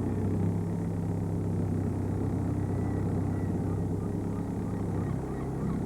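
Small fishing boat's engine running steadily at full throttle, its note dropping slightly about five seconds in.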